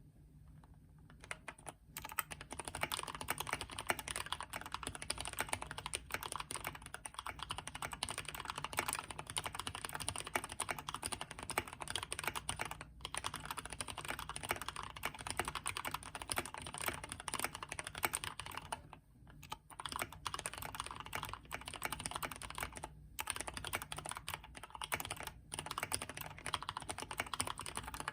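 Continuous typing on a Keychron K2 mechanical keyboard with Gateron Brown tactile switches: a dense stream of key clicks that starts about a second and a half in and breaks off briefly a few times.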